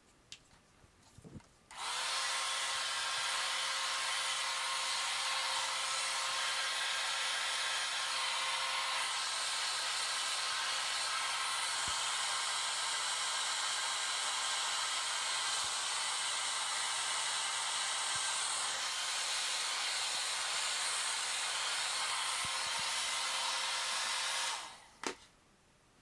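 Handheld blow dryer on its cool setting, running steadily with a steady motor whine under the rushing air, blowing acrylic paint across a canvas. It switches on about two seconds in and cuts off near the end, and a small knock follows as it is set down.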